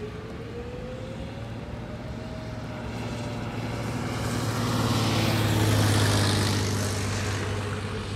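Vehicle driving on a wet, rain-soaked highway, heard from inside the cabin: a steady low engine and road drone, with a hiss of tyres and spray on wet pavement that swells up about halfway through and fades again near the end.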